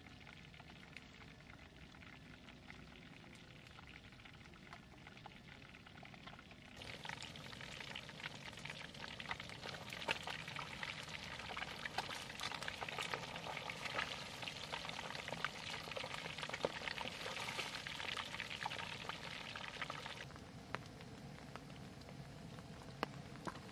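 Catfish deep-frying in a pan of hot oil: a dense crackling sizzle with many small spitting pops, starting suddenly about seven seconds in and dropping away after about twenty seconds. Before and after it, a quieter steady hiss.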